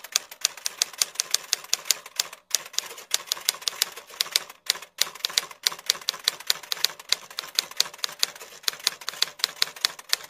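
Typewriter typing sound effect: fast, uneven key clacks, about five a second, with two short breaks.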